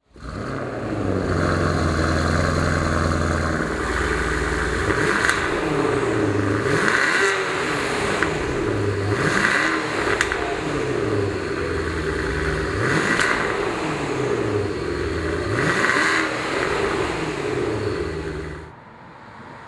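Porsche Panamera Turbo's twin-turbo V8 idling, then revved again and again, the pitch rising and falling about five times, through Fabspeed downpipes with 200-cell catalytic converters, an X-pipe resonator delete and the stock valved rear mufflers. It drops back sharply near the end.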